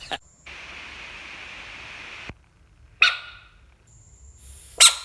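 A frog's distress calls: a steady hissing screech for about two seconds, then two short, sharp, loud screams a couple of seconds apart.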